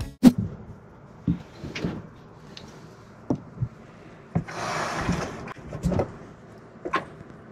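Scattered sharp knocks and clicks, irregular, with a short rushing hiss about halfway through.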